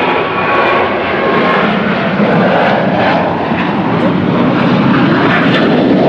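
Jet airliner's engines roaring loudly as the aircraft passes close by. A high engine whine fades out in the first second, and the roar then settles into a deeper rumble.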